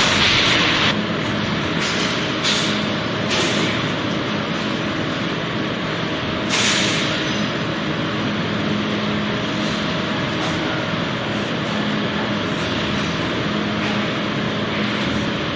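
Steady machinery noise with a low constant hum, broken by a few short hisses early on and again about six and a half seconds in.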